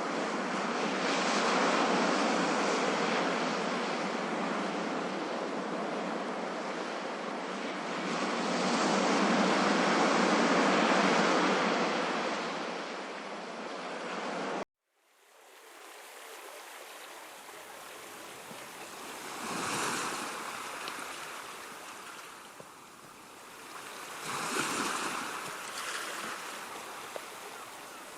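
Ocean waves: a dense, steady wash of surf that cuts off abruptly about halfway through. A quieter recording of waves then fades in, with waves washing in about every five seconds.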